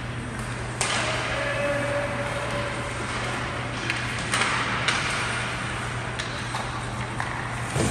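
Ice hockey play in an arena: skate blades scraping the ice and sharp clacks of sticks on the puck, heard several times, over a steady low hum.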